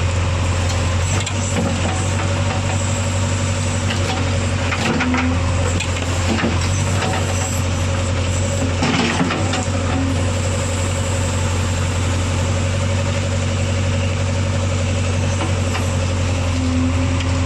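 Heavy diesel engine running steadily with a constant low hum, with a few short knocks, the clearest about halfway through.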